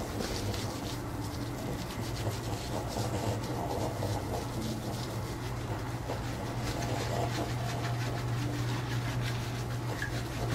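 Hands rubbing and scrubbing a French bulldog's wet fur in a bathtub, an irregular rustling of strokes with small splashes of water, over a steady low hum.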